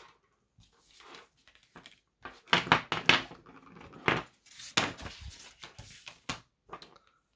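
Acrylic paint markers and sheets of white card being handled on a wooden desk: irregular clacks, taps and rustles, loudest a couple of seconds in.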